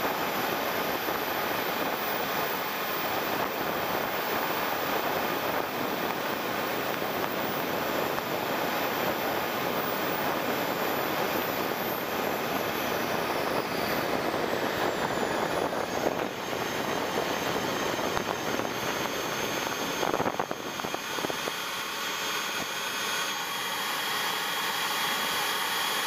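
JetCat 160SE model jet turbine heard from a camera mounted on the jet, over a steady rush of airflow. Its high whine falls in pitch about halfway through as the throttle comes back for landing. A few knocks come about three-quarters through as the wheels meet the runway, and the rush is lower afterwards.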